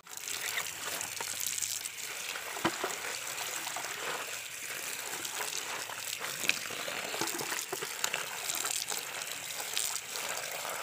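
Running water pouring into a plastic bucket full of leaves and splashing as hands rub and rinse the leaves and stems, a steady gushing sound. Two short sharp clicks stand out, about a quarter and about three-fifths of the way through.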